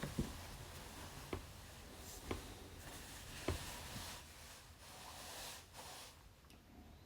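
Faint handling noises: four light knocks about a second apart, then a soft rubbing hiss. No power tool is heard running.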